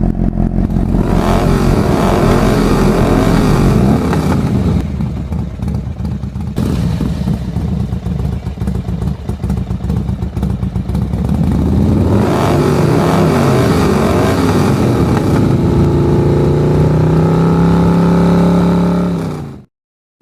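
Motorcycle engine sound revving up and down repeatedly, then climbing and holding a high pitch before cutting off suddenly near the end.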